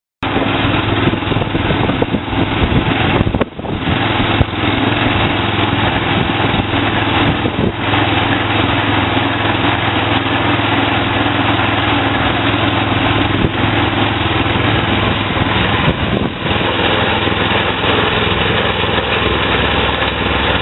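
Kohler 6.5 hp single-cylinder petrol engine of a concrete kerbing machine running steadily while the machine extrudes a concrete kerb, with three brief dips in level.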